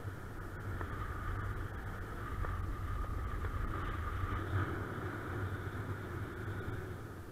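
Airflow buffeting the camera microphone during a paraglider flight in strong wind: a steady rush with a deep rumble underneath, swelling slightly in the middle.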